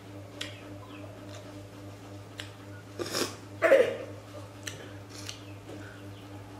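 A woman blowing her nose into a tissue: two short blasts about three seconds in, the second the louder.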